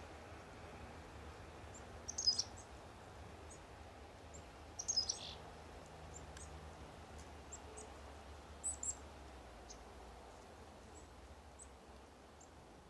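Small songbirds chirping: scattered short, high calls, with louder clusters of chirps about two, five and nine seconds in.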